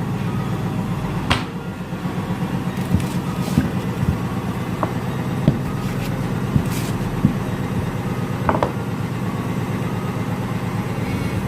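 Dough being rolled out on a floured tabletop with a rolling pin: scattered soft knocks and taps over a steady low hum.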